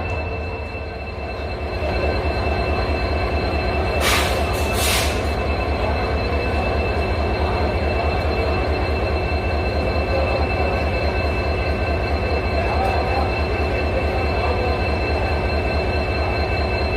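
EMD WDP4D diesel locomotive's 16-cylinder two-stroke 710 engine humming with a deep, rapid pulsing throb and a steady high whine over it. Two short hisses of air come about four and five seconds in.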